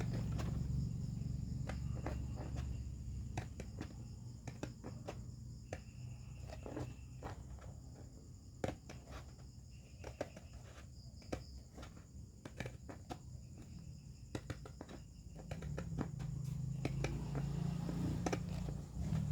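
Irregular small clicks and taps from hands working on loudspeaker parts, over a low hum that fades after the start and comes back near the end.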